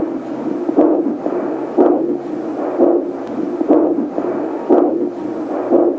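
Fetal doppler speaker playing the mother's abdominal artery pulse: a whooshing beat about once a second, around 70 a minute, in time with the mother's own heartbeat rather than the faster fetal heart.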